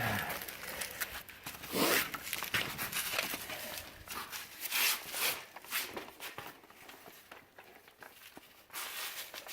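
Scattered footsteps and scuffs on rock, with rustling, in irregular short bursts and quieter gaps between.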